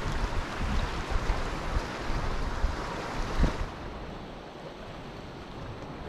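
Sea surf: waves washing in as a steady rushing noise, with wind buffeting the microphone in low rumbling gusts that ease off a little past halfway.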